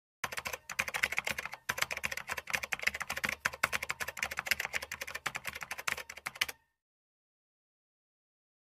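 Typing sound effect: a fast, steady run of keystroke clicks with two short breaks near the start, stopping about six and a half seconds in.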